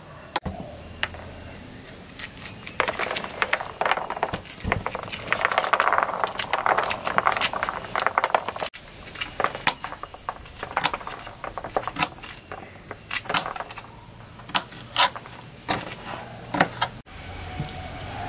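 Kitchen knife chopping carrot and green papaya on a plastic cutting board: a fast run of chopping a few seconds in, then single sharp cuts about once a second. A steady high insect drone runs underneath.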